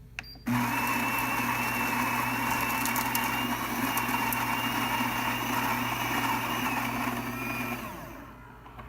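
Saeco Exprelia Evo super-automatic espresso machine's built-in grinder motor running steadily as it grinds beans for a brew, with a low hum and a high whine. It starts after a click and winds down with a falling whine near the end.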